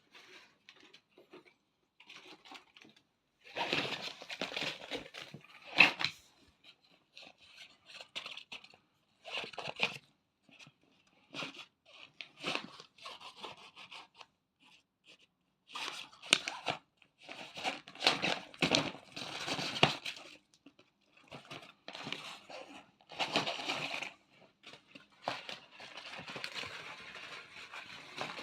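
Crinkly cat tunnel rustling and crackling in irregular bursts as a cat plays in and around it, with a sharper snap about six seconds in.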